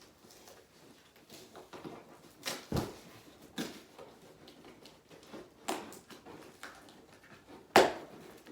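Cardboard box and packing being handled during unboxing: a few scattered knocks and scrapes, the loudest thump near the end.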